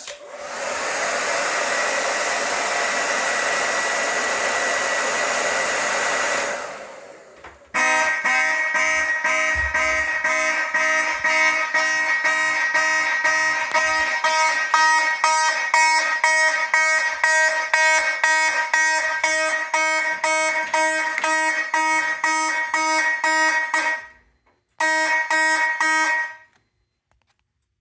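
A hot-air blower runs steadily for about six seconds to heat a 5451 heat detector, then stops. About a second later the detector trips and the fire alarm horns sound in a fast, even pulse. They stop, then give a short burst of a few more pulses near the end.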